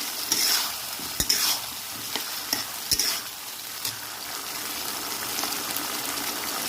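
Chicken pieces in sauce sizzling in a hot kadai while being stirred, with several scrapes and knocks of the stirring in the first three seconds, then a steady sizzle.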